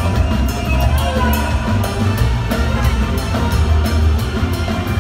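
Live band music played loud over a PA: a drum kit keeps a steady beat under heavy bass.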